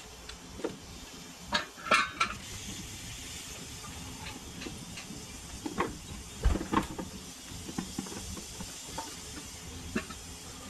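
Scattered metallic clinks and knocks as a Ford Explorer's transfer case is worked loose from its last bolts and lowered by hand, the loudest a couple of seconds in and just past the middle, the latter with a dull thud. A steady hiss runs underneath.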